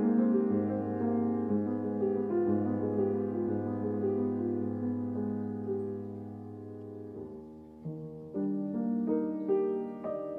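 Instrumental background music led by piano: held chords over a steady low bass, which drops out about seven seconds in, leaving a few separately struck notes.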